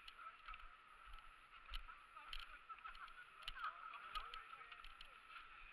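Faint footsteps at a walking pace, with faint distant voices of people talking behind them.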